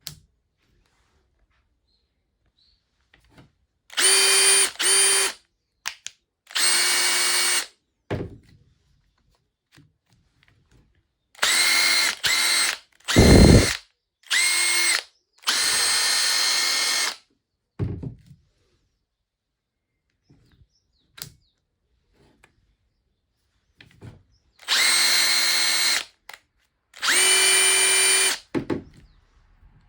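Makita TP141D cordless impact driver being run in short trigger pulls after repair: about nine bursts of a second or so each, the motor spinning at a steady high whine, each starting and stopping sharply with silence between. One burst near the middle has a deep rumble under the whine.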